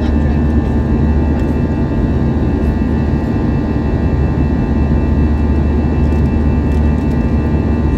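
Airbus A321 jet engines and airflow heard from inside the passenger cabin in flight: a steady low rumble with a constant high whine over it.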